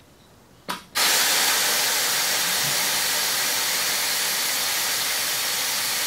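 Redline MC1K motorcycle lift table being lowered under a load of about 1,020 lb: a click about two-thirds of a second in, then a sudden loud, steady hiss of air venting from the lift's release as the table comes down.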